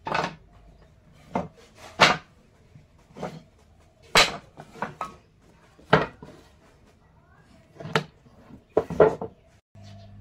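Hand tools striking wood: about ten sharp knocks at uneven intervals, a second or so apart, with a quick double knock near the end.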